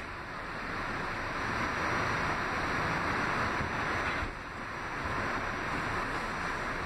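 R46 subway car rolling along the track past a station platform, heard from inside the car as a steady rushing noise of wheels and running gear, with a short dip about four seconds in.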